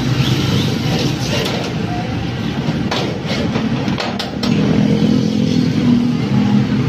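A motor running with a steady low drone. A few sharp clicks come about three to four seconds in, and then the drone gets louder, with a steady hum.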